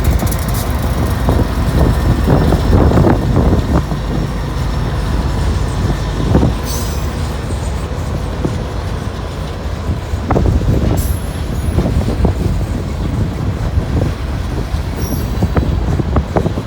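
Loaded rock train's freight cars rolling past at close range: a heavy rumble with clusters of wheel clacks over the rail joints, and brief high wheel squeals a few times.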